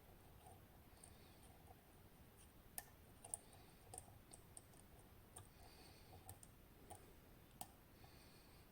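Faint, irregular clicking of a lock pick working the pins of a TESA T80 dimple lock under tension, with a few sharper clicks about three seconds in.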